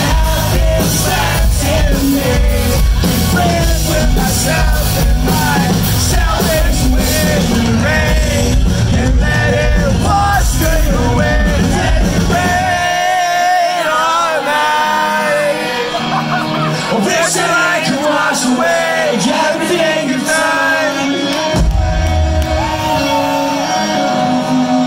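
Live rock band with a singer: vocals, electric guitar, bass and drums played loud in a concert hall. About halfway the drums and bass drop out, leaving the voice and guitar, and the full band comes back in near the end.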